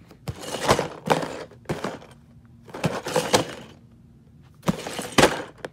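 Cardboard LEGO set box being handled and turned over by hand: a few bursts of scraping and rubbing with sharp taps and knocks, the sharpest knock near the end.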